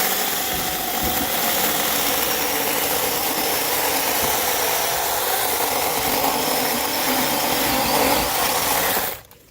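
6-inch brushless cordless mini chainsaw running at full speed and cutting through the dead woody stems at the base of a bush. It runs steadily for about nine seconds, then stops suddenly near the end.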